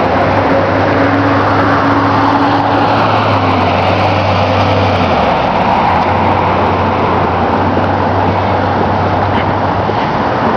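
Road traffic noise from a street, a steady wash of passing-car sound with a low engine hum underneath that fades about halfway through.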